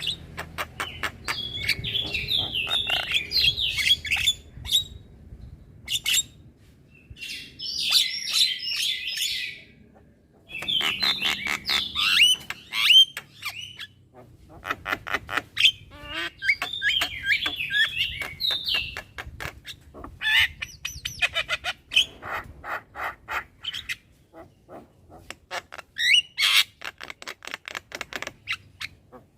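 Young Javan myna chattering continuously: clusters of rapid, jumbled whistled notes mixed with fast clicking sounds, broken by short pauses.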